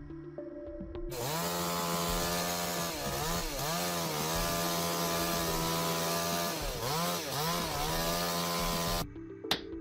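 Chainsaw running at high revs while cutting wood, its pitch dipping and recovering several times, then cutting off suddenly near the end.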